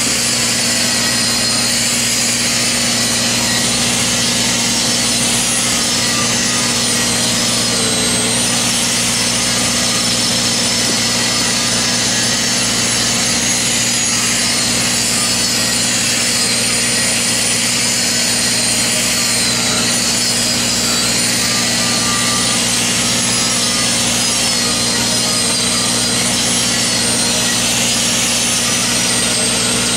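Steady hiss and crackle of a stick-welding arc laying a fill or cap pass on pipe, over the even running of an engine-driven welding machine.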